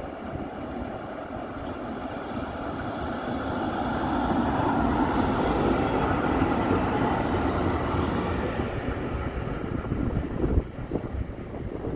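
Charleroi light-metro tram running past on its tracks: a rumble of wheels on rail that swells as it approaches, peaks as it goes by, then fades away. A single knock near the end, with wind on the microphone.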